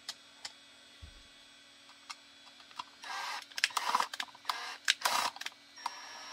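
Small metal screws and hardware clattering in a few rattling bursts as the correct size is picked out, after a few light clicks.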